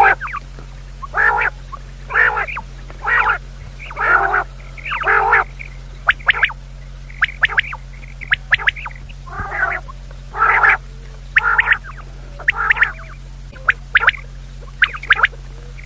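Quail calling over and over: short, croaky calls about once a second, over a steady low electrical hum.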